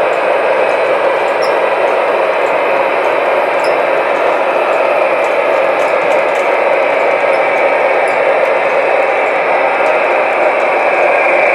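Three-rail model diesel switcher locomotive running along the track pulling a flatcar: a steady whirring, rolling noise of motor and wheels at an even speed.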